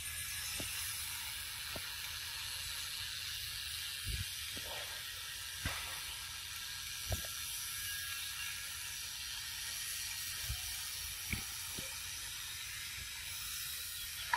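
Steady high hiss of forest background ambience, with a handful of soft, short low thumps scattered through it.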